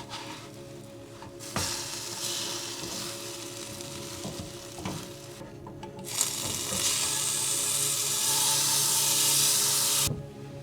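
French toast sizzling in a frying pan, in two stretches that start and stop abruptly, the second louder than the first.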